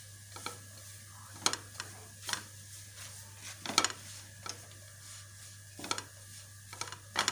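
Wooden spatula scraping and turning crumbly besan dough in ghee across a nonstick frying pan, in irregular strokes about once or twice a second, as the gram flour is roasted.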